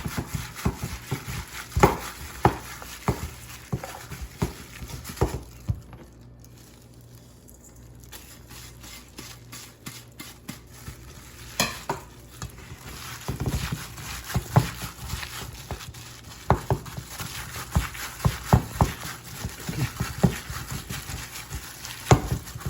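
Ground chicken, chopped onion and spices being mixed together in a bowl: stirring and mixing noises with irregular clicks and knocks, quieter for a spell about six to twelve seconds in.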